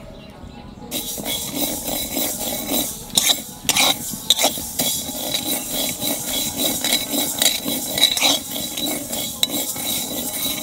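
Mustard seeds being stirred and dry-roasted in a metal kadai, giving a continuous gritty rattle and scrape of seeds against the metal with scattered sharp ticks. It starts about a second in.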